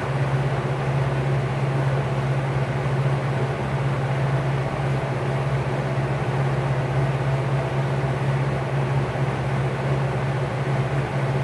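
Vintage Lakewood P-58 box fan motor running steadily, spinning a 20-inch LAU 60263801 propeller: a steady low hum over a rush of moving air.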